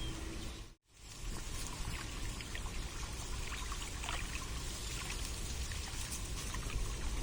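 Water trickling and splashing steadily, with small droplet ticks; the sound cuts out for a moment just under a second in, then resumes.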